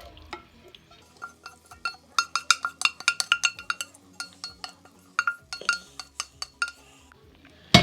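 A metal spoon clinking and scraping against metal cookware: quick ringing clinks, several a second for a couple of seconds, then scattered, with one loud knock at the end.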